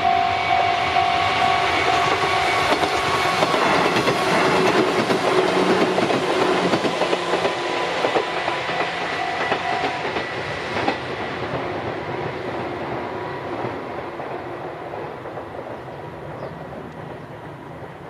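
Level-crossing alarm ringing at about two beats a second while a Sunzu Line electric train passes with wheels clattering over the rail joints. The alarm stops about ten seconds in, and the train's noise fades away as it leaves.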